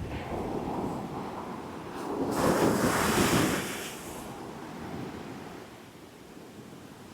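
Caribbean surf crashing in strong wind, with wind buffeting the microphone. The sound swells to its loudest about two seconds in and eases off by about four seconds.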